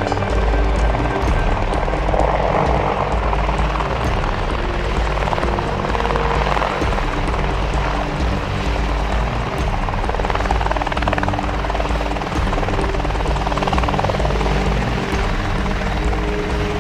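UH-60 Black Hawk helicopter flying past, its rotors and turbines giving a steady, dense rotor noise, with a music bed of sustained tones underneath.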